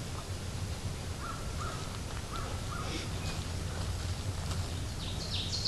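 Ovenbird starting its loud 'teacher, teacher, teacher' song near the end: a quick series of repeated high two-part phrases. Before it, a few faint short calls from another bird, over a steady low hum.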